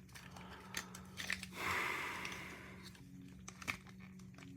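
Plastic parts of a Transformers Studio Series 86 Ratchet figure being handled during transformation: a few faint clicks of plastic joints and pieces, with a brief rustling scrape about two seconds in.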